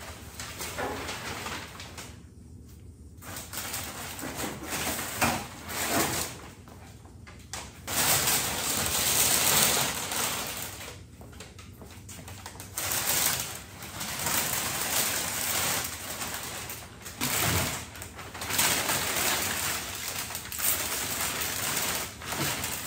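Crumpled brown kraft packing paper rustling and crinkling in irregular bursts as it is pulled and pushed around inside a wooden shipping crate, along with thin aluminium sheet-metal skins being lifted and shifted. The handling is loudest about a third of the way in, with a couple of brief lulls.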